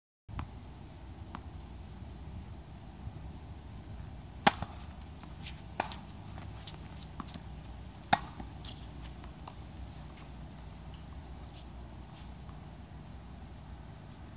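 Tennis ball struck by racket strings during a rally: sharp, hollow pops about four and a half and eight seconds in, the first the loudest, with a softer hit or bounce between and a few faint ball bounces. A steady high-pitched hiss runs underneath.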